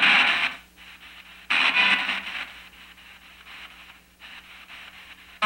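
P-SB7 spirit box sweeping through FM radio frequencies, played through a small Blackstar amplifier: short bursts of radio static and broken broadcast fragments, three of them, the first the loudest, over a low steady hum.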